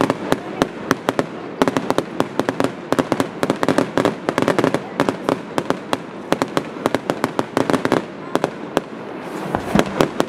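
Fireworks display: aerial shells bursting in a dense, irregular run of sharp bangs and crackles over a steady rumble, thinning briefly near the end before picking up again.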